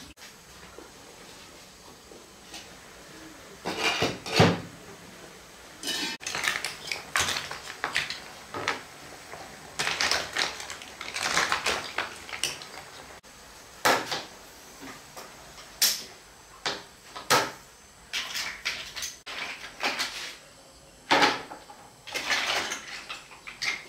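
Dishes, pots and utensils knocking and scraping in irregular bursts, with quieter gaps between them.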